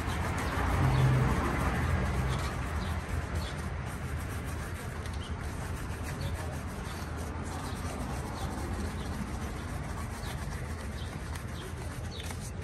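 Steady outdoor street background noise with a low rumble, and a brief low hum-like tone about a second in that is the loudest moment.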